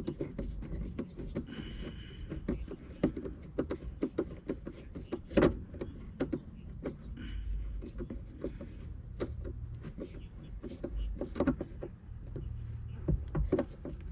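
Irregular clicks, knocks and rattles of parts being handled and fastened as an oil tank is mounted in a boat, over a low steady hum.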